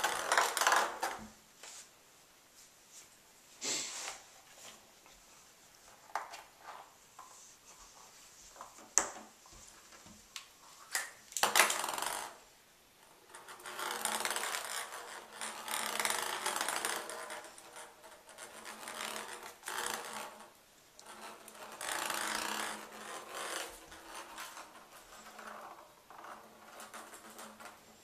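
Ping pong ball batted around an empty bathtub by a Bengal kitten: first a few sharp taps and clicks, then long stretches of the ball rattling as it rolls across the tub's hard surface.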